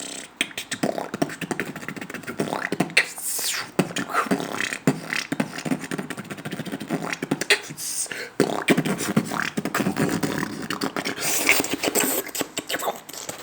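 A man beatboxing: a fast run of mouth clicks, pops and breathy hisses.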